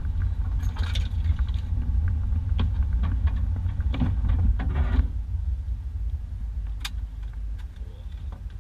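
1991 Isuzu Trooper driving slowly over a rough dirt two-track: a steady low rumble of engine and tyres, with scattered knocks and rattles as the truck bounces, thickest between about two and a half and five seconds in, then easing off.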